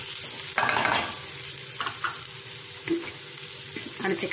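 Mushroom masala sizzling in a steel kadai while a spatula stirs it, scraping across the metal pan a few times, loudest about half a second in.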